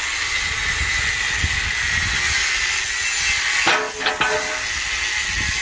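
Steady hiss with a thin, high, unchanging tone, from metalwork reinforcing a truck's chassis frame, with wind rumbling on the microphone. A brief pitched sound about two-thirds of the way in.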